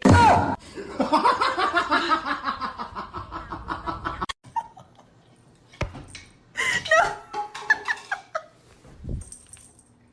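Laughter in quick repeated bursts for about four seconds, then it cuts off suddenly. After a short gap, a few brief voice-like squeals follow.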